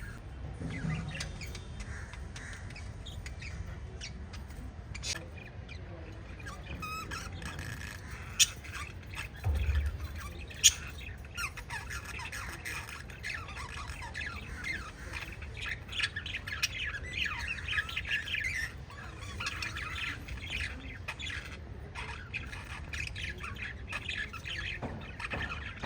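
Several pet budgerigars chirping and squawking in a continuous chatter. A couple of sharp clicks and a short low thump come about ten seconds in.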